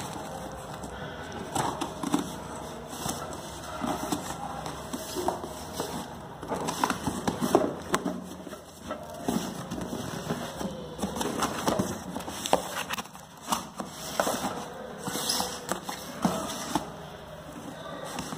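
A cardboard shipping box being cut open and its flaps pulled back: irregular scraping, tearing and rustling of cardboard and packing tape, with short sharp clicks and crackles.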